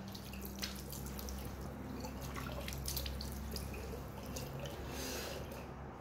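Water at a bathroom sink: a running tap with splashing and dripping as water is scooped and rinsed after a shave. It dies down near the end.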